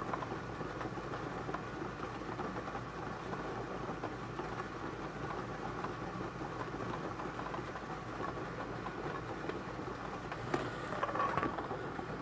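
Bingo ball blower machine running steadily, a continuous whir with the rattle of balls tumbling in the air stream, and a few sharper clicks near the end as the next ball comes up.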